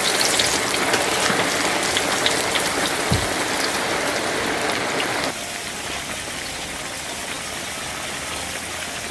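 Taro pieces deep-frying in hot oil in a wok, a dense sizzle with small pops as the freshly added taro's surface moisture boils off. About five seconds in, the sizzle drops to a quieter, steadier level.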